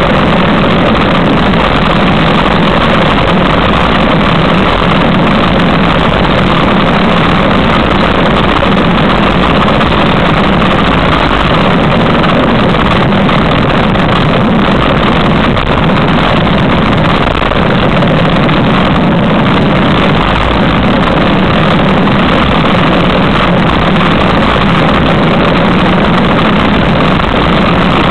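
Steady rush of wind buffeting the microphone of a bicycle descending fast on a mountain road, loud and unbroken.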